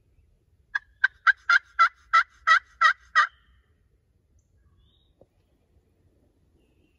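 Wild turkey yelping: a run of about nine loud, raspy yelps at roughly three a second, lasting about two and a half seconds.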